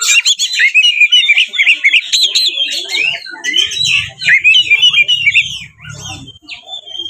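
Oriental magpie-robin (kacer) singing a loud, fast, unbroken run of varied whistles, chips and trills packed with mimicked phrases. It is the aggressive fighting song that bird keepers play to provoke other kacer into answering.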